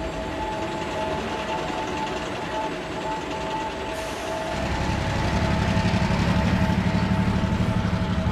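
Scrapyard ambience of a steady machinery din with two faint steady tones. About halfway through, a low, fast-pulsing engine-like throb grows louder and keeps going.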